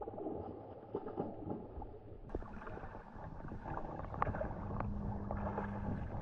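Peacock bass splashing at the surface of shallow water, a run of small irregular splashes that grows louder after about two seconds.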